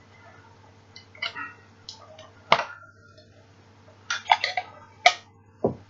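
Items and packaging being handled during an unboxing: a string of sharp knocks, clicks and short rustles, the loudest about two and a half seconds in and a cluster around four to five seconds in, over a faint steady electrical hum.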